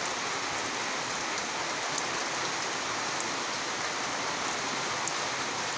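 Steady rain falling, an even hiss with a few faint drip ticks here and there.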